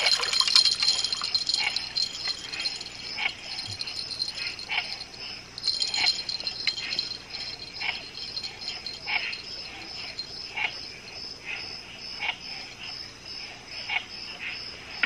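Night insects chirping in a steady, high, pulsing trill, with sharper clicking calls about once a second. A dense rattle of clicks at the start fades out within the first second.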